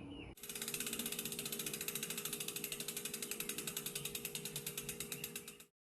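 Bicycle rear hub freewheel ticking in a rapid, even train of clicks, the pawls ratcheting as the wheel spins. It starts suddenly, fades slightly, and cuts off abruptly near the end.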